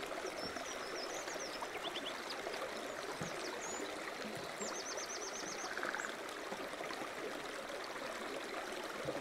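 Outdoor ambience: a steady hiss with small birds chirping now and then, including a quick run of about ten high notes about five seconds in.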